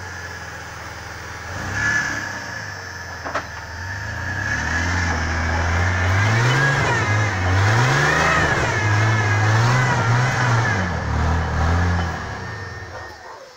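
A truck engine revving up and down several times, loudest in the middle and dying away near the end, with a single sharp click a few seconds in.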